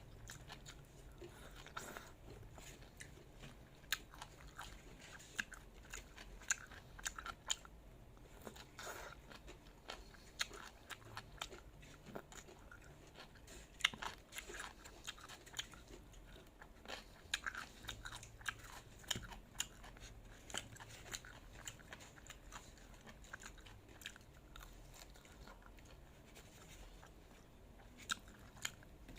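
A person chewing and biting food, with irregular sharp clicks and crunches scattered through.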